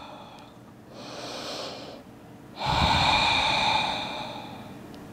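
A woman breathing deeply while holding a seated forward-fold stretch. A soft inhale comes about a second in, then a louder, longer exhale starts just before three seconds and fades out over about a second and a half.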